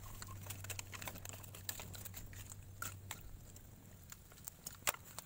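Wood and bamboo campfire crackling, with irregular small pops and one sharper pop near the end.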